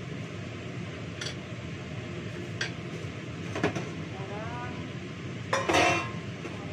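Metal kitchenware clinking on a tiled counter: a few light clinks, then a louder clatter of a metal bowl and utensils near the end, over a steady rushing background noise.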